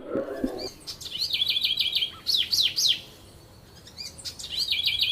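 Eurasian wren singing: fast trills of repeated high notes mixed with sharp down-slurred notes, in two phrases with a quieter gap of about a second between them.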